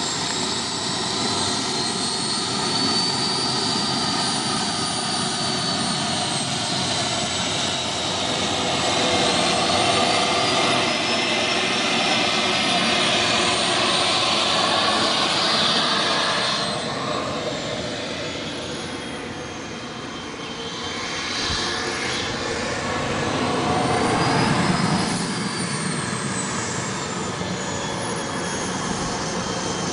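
The small turbine engine of an Airworld BAe Hawk RC model jet running, a steady jet roar with a high whine that slowly rises and falls in pitch. It drops in loudness a little past halfway, then comes back up.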